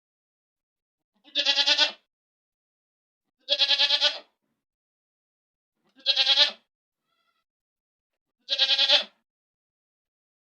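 Goat bleating four times, about two and a half seconds apart. Each bleat is a short, wavering 'baa' under a second long, with complete silence between them.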